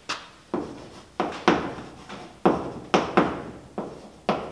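Chalk writing on a blackboard: an irregular run of sharp taps and short scratchy strokes, about nine in all, each with a brief ring-out in the board.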